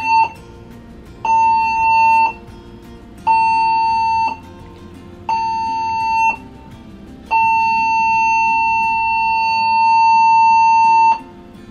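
A cruise ship's general emergency alarm sounding for a muster drill: a steady electronic alarm tone in short blasts of about a second every two seconds, then one long blast of about four seconds. This is the end of the seven-short-and-one-long general alarm signal, heard through the cabin's loudspeaker.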